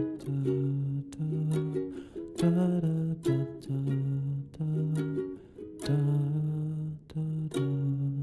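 Instrumental music: a plucked acoustic string instrument playing a run of chords, each sharply attacked and left to ring, over held low bass notes.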